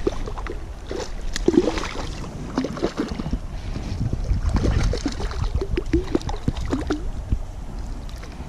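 Water splashing and gurgling in quick, irregular little bursts, with steady rain and wind noise on the camera microphone.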